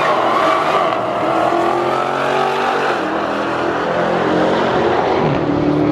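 Dodge Challenger SRT Demon's supercharged V8 at full throttle down a drag strip, its pitch climbing through the gears with an upshift about three seconds in and another near the end.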